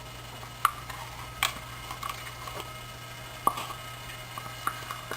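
A kitchen spoon clicking and tapping a few times against a bowl as yogurt is spooned into roasted semolina for batter, over a low steady hum.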